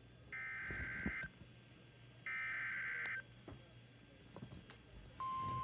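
Emergency Alert System SAME header on NOAA Weather Radio: two one-second bursts of digital data tones, about a second apart, then about five seconds in the steady 1050 Hz warning alarm tone starts, signalling that a warning is about to be broadcast.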